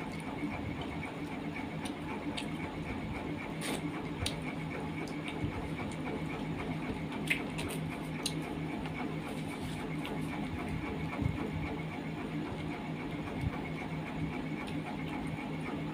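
Close-up eating by hand: chewing and mouth sounds with scattered small clicks and smacks, over a steady low hum.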